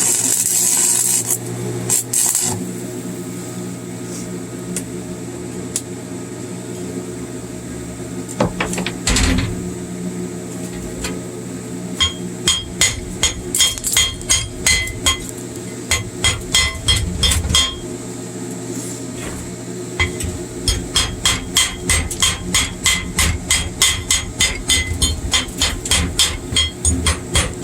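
Chipping hammer knocking slag off a fresh 7018 arc weld bead: runs of sharp, ringing metal strikes, about two to three a second, after a brief hissing crackle at the start. The strikes pause for a couple of seconds midway, then carry on.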